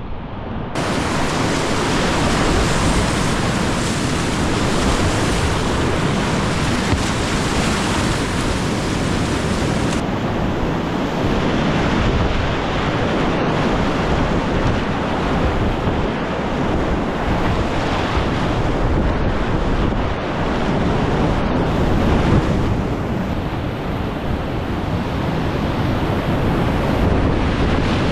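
Loud rushing whitewater all around a kayak running a big-volume rapid and waterfall, with water and wind buffeting the microphone. The rush comes in suddenly about a second in and stays steady.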